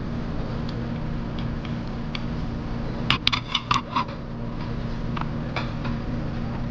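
A quick run of about six light clinks of tableware (chopsticks, dishes or clam shells knocking together), about three seconds in, over a steady low hum.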